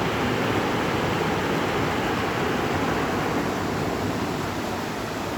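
River water flowing steadily, a constant even rush of water.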